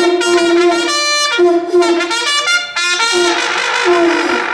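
A conch shell and a trumpet blown together in long, loud blasts: one low note held and repeated about four times, with the trumpet's higher notes changing over it. The blasts announce happy hour at a beach bar.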